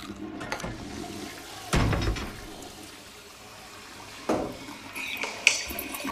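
Toilet flushing: a rush of water that sets in loudly about two seconds in and runs on as a wash, with another surge a little after four seconds.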